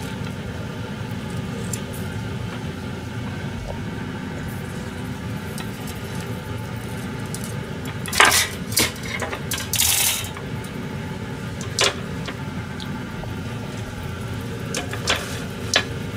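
Clinks and clatter of a knife and toasted sandwich pieces being handled on a wooden cutting board and a steel wire cooling rack, loudest in two bursts about eight and ten seconds in, with a few lighter clicks later. A steady low kitchen hum runs underneath.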